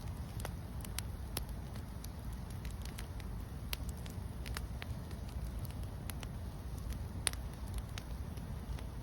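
Campfire burning, with irregular sharp crackles and pops from the wood over a low steady rumble; one pop about seven seconds in is the loudest.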